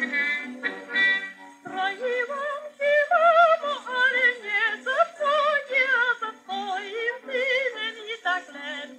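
1938 recording with a thin sound and no bass: instrumental accompaniment, then from about two seconds in a voice singing with a wide, wavering vibrato.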